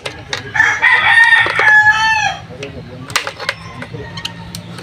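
A rooster crowing once, a long call of nearly two seconds that bends down at its end, with sharp clicks and knocks before and after it.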